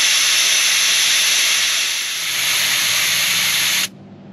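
Air hissing out of a 4WD tyre through an ARB tyre deflator as the tyre is aired down from about 40 psi toward 24 psi. The steady hiss cuts off suddenly near the end.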